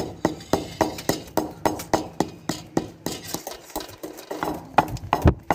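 Wooden pestle pounding black peppercorns and long pepper in a marble mortar, grinding them to powder: a run of sharp knocks, about four a second, with a few louder strikes near the end.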